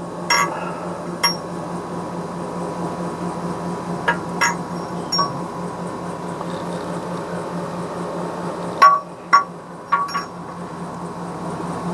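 Light metallic clinks and taps, about eight spread out, each with a short ring, from metal parts and hand tools being handled during rear-end assembly. A steady low hum runs underneath.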